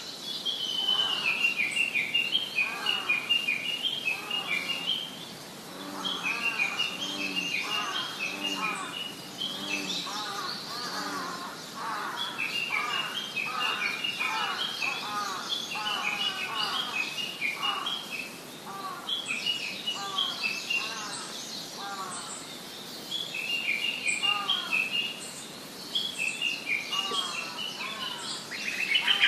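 Female lesser cuckoo giving its bubbling 'pi-pi-pi-pi' call: quick runs of high, falling notes, each bout a few seconds long, repeated six or seven times. Other birds call more softly underneath.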